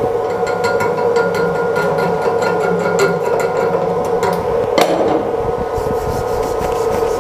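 Chipping hammer knocking slag off a fresh E7018 weld bead on steel: a quick run of metallic strikes with one harder knock a little under five seconds in. Then a wire brush scrubs the bead clean, over a steady background hum.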